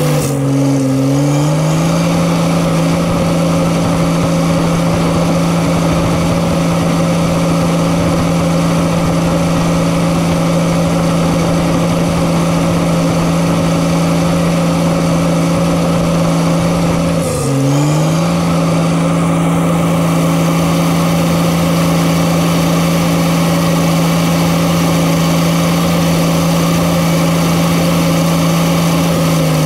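Diesel engine of a heavy earthmoving machine running steadily under load. About half a second in, and again around 17 seconds in, the engine speed dips briefly and climbs back within a second or so.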